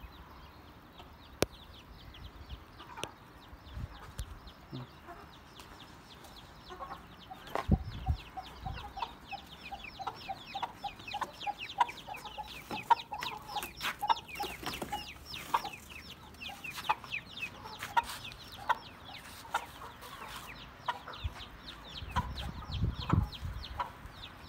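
Aseel chickens clucking: a run of short repeated clucks and many quick high-pitched calls over them, with a knock or two.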